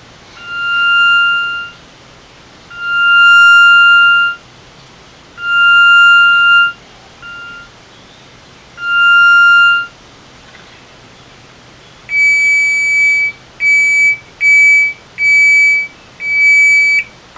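Multi-layer piezo speaker taped to a Paulownia wood board, driven by a Deerhorn tone circuit, sounding plain unmodulated beeping tones with a light buzz against the wood. Five notes of about a second each at one pitch, one of them brief, then after a pause five shorter notes at a higher pitch.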